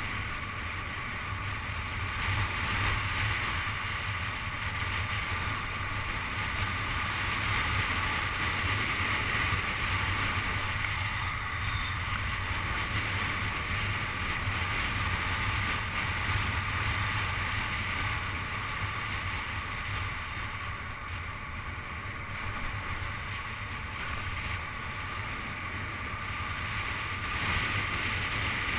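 Car driving at steady highway speed: an even rumble of tyre and road noise with wind hiss.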